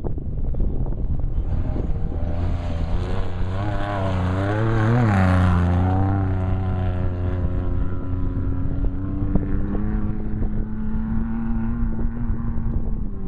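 Off-road race vehicle's engine passing close by. Its pitch rises and falls and it is loudest about five seconds in, then a steadier engine drone follows near the end.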